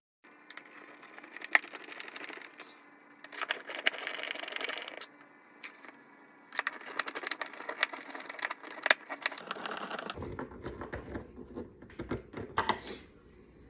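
Three screws being driven into the plastic housing of a Pentair Racer pool cleaner: three stretches of rapid clicking and whirring from the screwdriver, followed by knocks as the unit is handled.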